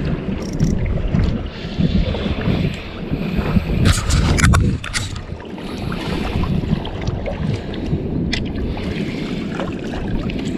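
Wind buffeting the microphone on an open boat while a spinning reel is wound in against a hooked pike. A few sharp clicks come about four to five seconds in, and another near eight seconds.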